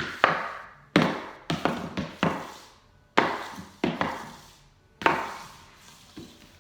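Rubber ice hockey puck being shot across a rough ridged panel: about ten sharp knocks at uneven spacing, each trailing off in a scraping slide.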